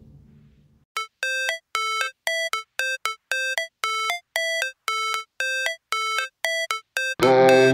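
Background music: after a second of near silence, a run of short, repeated high notes about four a second; near the end a fuller arrangement with low bass notes comes in.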